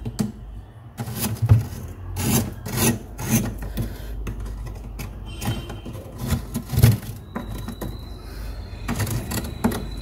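Metal spoon scraping thick frost in a freezer compartment, in a series of irregular rasping strokes.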